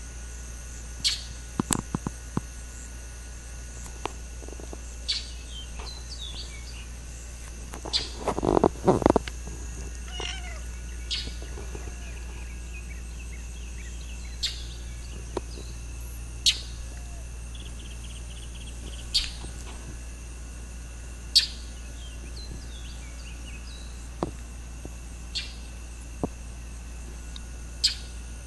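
A domestic cat meowing, loudest about a third of the way in, over steady high-pitched insect chirring. Short sharp sounds come every few seconds.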